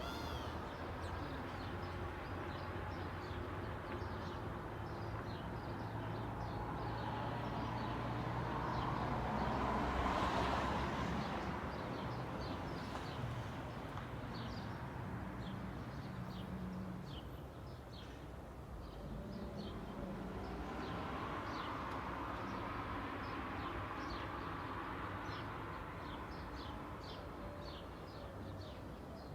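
Suburban street ambience: a car passes, loudest about ten seconds in, and another passes in the second half, over steady chirping of small birds.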